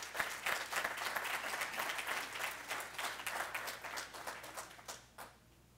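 Audience applauding, with many hands clapping together, tapering off and dying away near the end.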